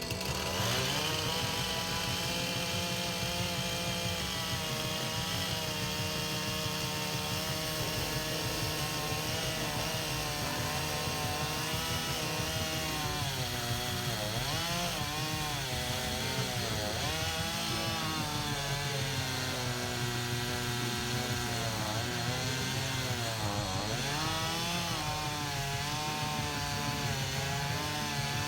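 Chainsaw running steadily while cutting the base of a cedar stump square. Its pitch dips and recovers now and then as it bites into the wood, most deeply about two-thirds of the way through.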